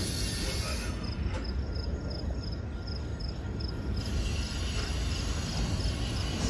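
Double-stack intermodal freight train rolling past: a steady low rumble of steel wheels on the rails. A faint high chirp repeats about three times a second over it.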